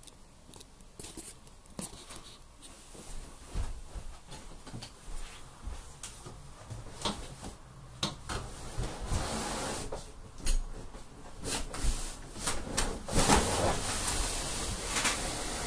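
Scattered knocks, clicks and scraping as a door in a race car transporter's living quarters is handled and pushed open, getting busier and louder in the second half.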